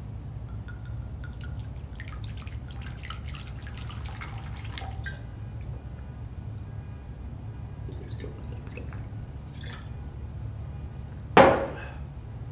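Liquid gurgling and trickling in a glass bottle as it is drunk from, then the glass bottle set down on a wooden table with one sharp knock about a second before the end, the loudest sound. A steady low hum runs underneath.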